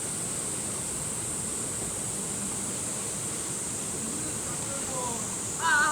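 Steady rush of a mountain valley stream, with a constant high hiss over it. Near the end, a high voice sings or calls out with a wavering pitch.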